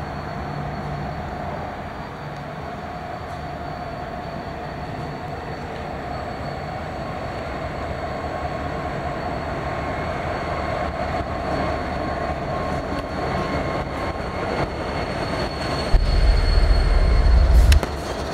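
Norfolk Southern freight train led by an EMD SD70ACe diesel locomotive, approaching and growing steadily louder. A deep rumble swells about two seconds before the end as the lead unit rolls past close by.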